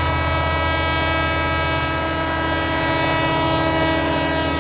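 A steady, sustained drone: one chord, its pitch unchanging, over a low rumble.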